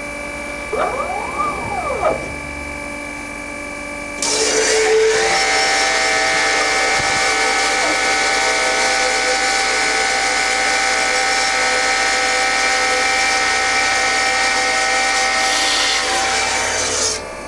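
MEP Shark 332 NC evo automatic bandsaw running with a steady hum; about a second in, a short whine glides up and down as part of the machine moves. From about four seconds in the blade saws through wood in one long, loud, steady cut with a high ring, ending shortly before the end.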